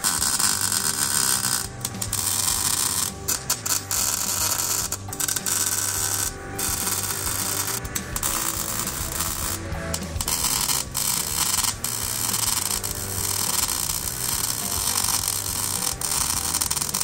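MIG welder arc crackling and sizzling in runs of one to a few seconds, broken by brief pauses between welds, over a low steady hum.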